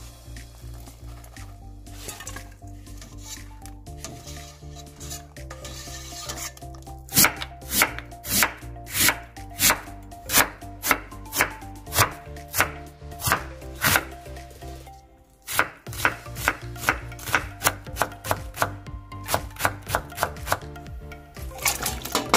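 Kitchen knife slicing Korean radish (mu) on a cutting board, each cut ending in a sharp knock on the board. The cuts start several seconds in at about two a second and, after a brief pause, come a little faster. Background music runs underneath.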